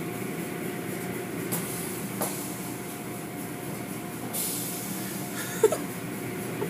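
Automatic car wash running: a steady hum of the machinery with water spraying as cloth curtains and brushes work over a car. About four seconds in, a hiss of spray swells for roughly a second, and a short high squeak follows.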